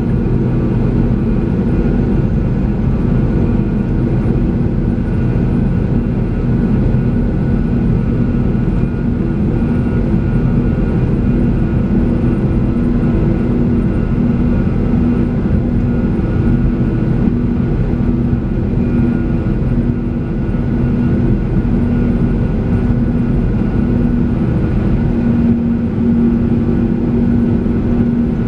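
Cabin noise of a Sukhoi Superjet 100 taxiing, its PowerJet SaM146 turbofans at low power: a steady drone with a low hum and a few higher tones, heard from a seat beside the wing.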